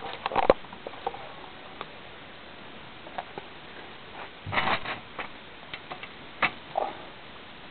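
Scattered light taps and clicks from small dogs playing fetch with a ball, with a quick cluster of louder knocks about half a second in and a rougher scuffling stretch about halfway through.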